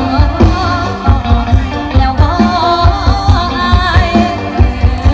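A live Thai band playing a country-folk song through a PA, a woman singing the lead in wavering, ornamented lines over a steady kick-drum beat.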